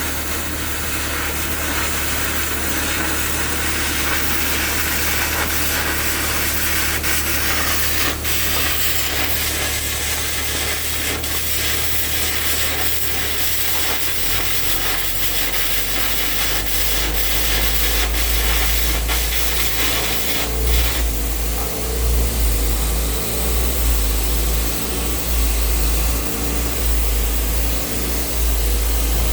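Air carbon arc gouging on steel bottom plating: a continuous loud hissing crackle of the arc and compressed-air jet blowing out molten metal. The hiss thins and turns more uneven about two-thirds of the way through, over a steady low hum.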